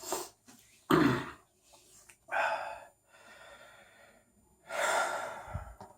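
A man breathing hard in heavy gasps and sighing exhalations, about four big breaths with the one about a second in the loudest, catching his breath after fast eating.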